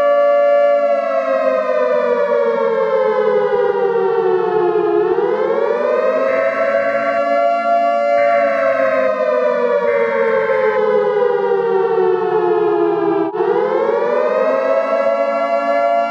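Civil defense siren wailing: several tones sounding together that fall slowly in pitch for about four seconds, swoop quickly back up about five seconds in, fall slowly again, and swoop up once more near the end.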